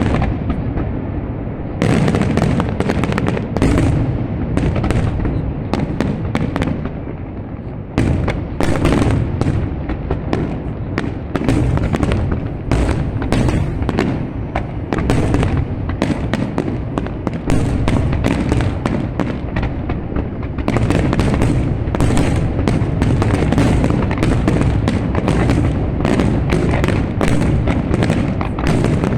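Fireworks going off in a rapid, dense barrage of bangs and crackles over a continuous low rumble, easing off briefly about six seconds in before picking up again and growing densest near the end.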